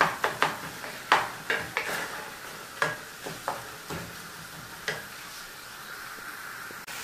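A utensil scraping and knocking against a pan while stirring a sizzling tomato and onion sauce; the strokes stop about five seconds in, leaving a faint steady sizzle.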